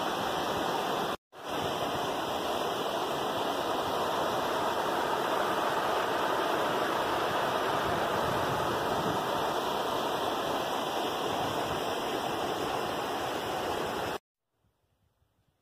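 Water rushing steadily over a concrete low-water dam and down its spillway, running high. There is a brief break about a second in, and it cuts off abruptly near the end.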